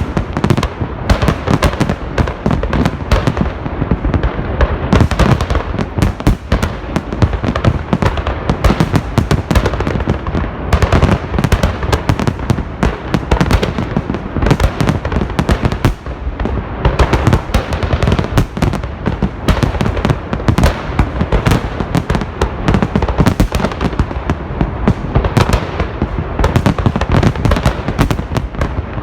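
Large festive fireworks salute: a dense, unbroken barrage of bangs and crackling bursts, many per second, over a continuous low rumble.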